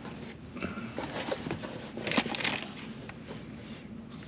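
Plastic interior console trim pieces being pulled off and handled, giving scattered clicks and rattling, loudest about two seconds in.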